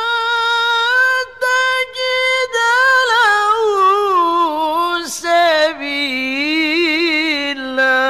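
A male qari's voice in melodic Quranic recitation (tilawah), drawing out one long melismatic phrase. It holds a high note, then descends in wavering, ornamented turns, with a few brief breaks early on.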